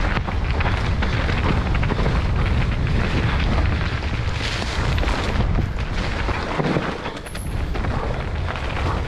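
Mountain bike descending a dirt trail at speed, heard from a helmet-mounted camera: constant low wind buffeting on the microphone, tyres rolling over dirt and leaves, and frequent knocks and rattles from the bike over bumps.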